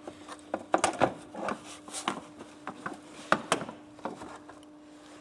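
Irregular knocks, clicks and scraping of a plastic windscreen-washer reservoir being pushed and worked into its mounting against the car's body panel. The knocks thin out about four seconds in, over a faint steady hum.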